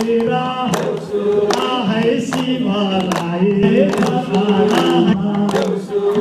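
A group of men singing a Deusi folk song for Tihar, a lead voice amplified through a microphone with the others joining in, over a steady clapped beat of about one stroke every three quarters of a second.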